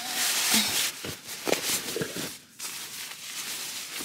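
Nylon bedding and fabric rustling as they are handled, with a few soft knocks in the first two seconds.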